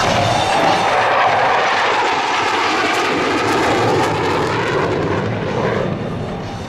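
Jet noise of a General Dynamics F-111's twin TF30 afterburning turbofans, with reheat lit, as the jet passes close and banks away. The pitch slides lower through the pass and the sound eases off near the end.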